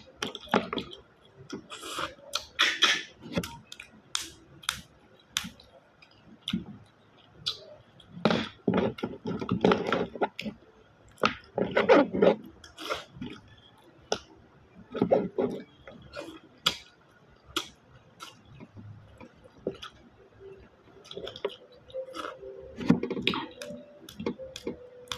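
Freshwater snails cooked in coconut milk being eaten by hand: repeated sharp sucking slurps as the meat is drawn out of the shells, mixed with clicks of shell and chewing.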